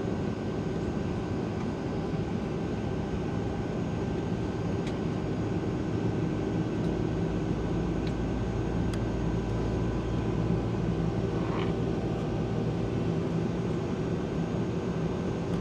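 Steady cabin noise inside a Boeing 757-200 with its Pratt & Whitney PW2037 turbofans running at idle before takeoff: an even drone with a few constant hum tones.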